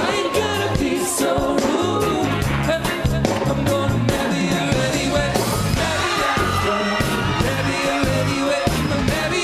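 Live band playing a reggae-pop song, a male lead singer singing the chorus over bass and drums keeping a steady beat.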